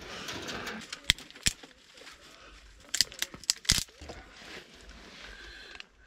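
Twigs and tinder being handled at a small wood stove: rustling and crinkling, with about six sharp snaps or clicks in the middle.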